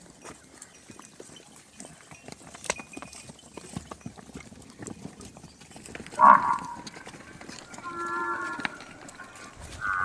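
Water buffalo lowing: a short, loud call about six seconds in, then two longer, steadier calls near the end, with faint scattered clicks in between.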